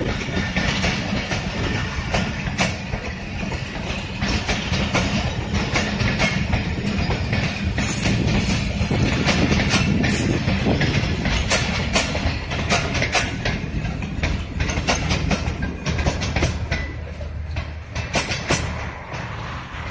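Pakistan Railways passenger coaches rolling past close by: a steady rumble of wheels on rail with rapid clicks and clacks over the rail joints, getting quieter near the end as the train draws away.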